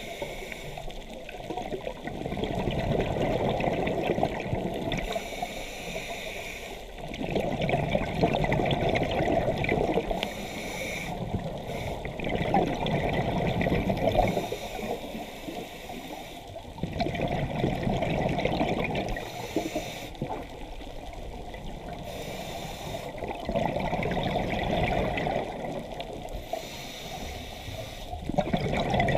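Scuba diver breathing through a regulator underwater: a hiss on each inhale, then a loud rush of bubbling on each exhale. About six breaths, one every four to five seconds.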